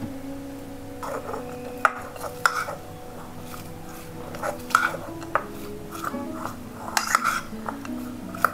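Steel spoon stirring sliced onions in a small black glazed bowl, clinking and scraping against the bowl in irregular strokes, over quiet background music.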